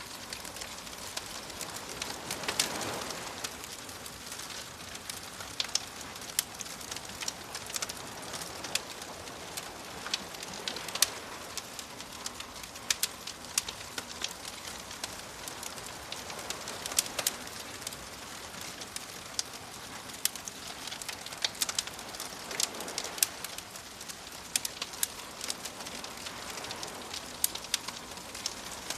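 Wood fire crackling, with frequent sharp pops and snaps over a steady hiss, while gentle waves wash in and recede a few times, swelling about three seconds in, around eleven seconds and again past twenty seconds.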